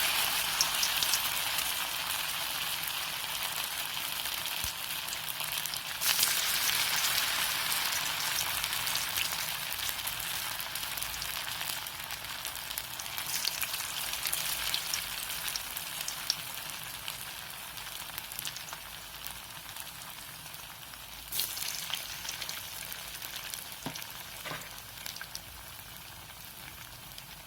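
Sago (javvarisi) vadas deep-frying in hot oil: a steady sizzle that slowly fades, flaring up again about six seconds in and again about three-quarters of the way through.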